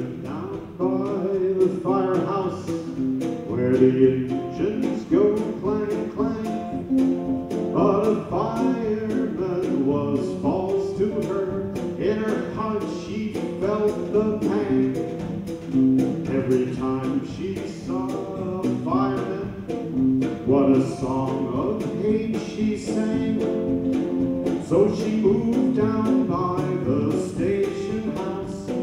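Live hot-jazz band music: a man sings over a strummed guitar that keeps a steady beat.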